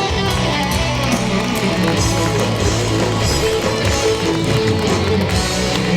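Music with guitar, a steady loud band track.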